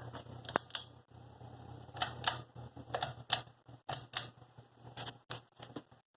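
Hampton Bay Lyndhurst 52" ceiling fan running with a steady low motor hum and a sharp double click repeating about once a second.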